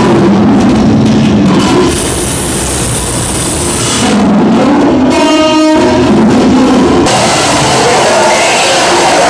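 Loud, dense experimental sound collage with musical elements, its layers changing abruptly several times, including a brief stack of pulsing tones about five seconds in.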